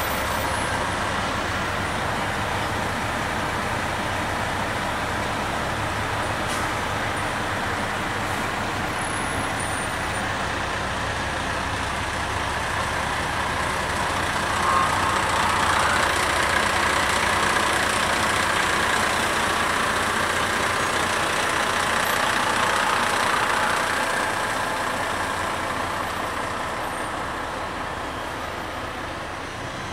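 Fire engine running as it creeps along the street, a steady engine rumble with a hiss over it. It grows a little louder about halfway through and fades toward the end as the truck moves off.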